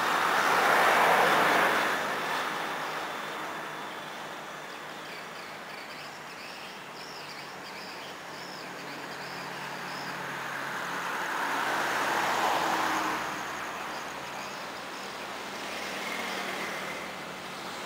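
Two broad swells of noise, like vehicles passing, about a second in and again around twelve seconds in. Between them is faint, rapid, high-pitched twittering of swiftlets.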